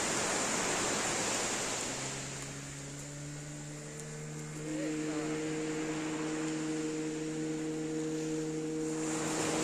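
Small waves washing on a shingle beach. From about two seconds in, a steady low hum of several held tones comes in and stays.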